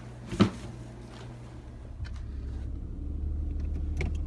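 A sharp knock about half a second in, then from about two seconds in the steady low rumble of a car driving, heard from inside the cabin.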